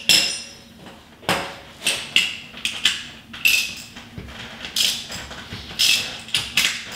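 About ten irregular metallic clinks, each with a short ring, from a wrench and socket working a long steel bolt that presses a rubber bushing out of a steering stabilizer clamp.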